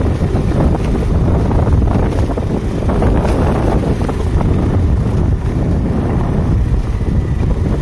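Heavy wind noise on the microphone: a loud, steady low rumble from air rushing past the moving camera.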